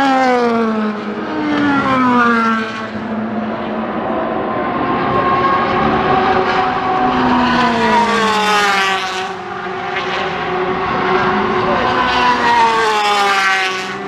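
Endurance race cars passing one after another at racing speed. Each engine note rises as a car approaches and drops in pitch as it goes by. There are passes a second or two in, again around eight to nine seconds, and near the end.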